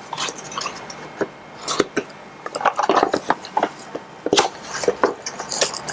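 Cardboard box and packaging being handled while the contents are taken out: irregular rustles, scrapes and light knocks.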